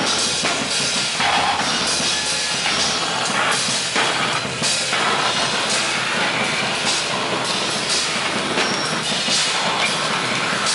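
Live noise-music performance: a dense, steadily loud wall of harsh noise with irregular crashing, drum-like hits.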